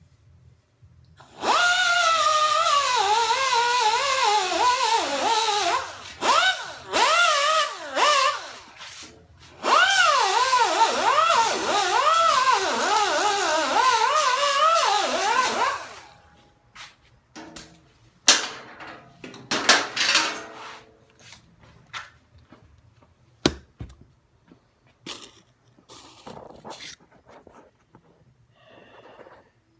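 Angle grinder grinding steel, its pitch sagging and recovering as it is pressed into the work. It runs in two long stretches with a few short bursts between, then stops about halfway through, leaving scattered clicks and knocks.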